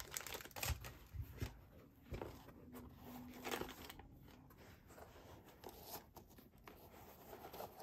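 Hands handling a new pair of Nike Air Zoom G.T. Cut 2 basketball shoes: soft rustling and scraping of the synthetic uppers and the paper stuffing inside them, with scattered small taps and clicks.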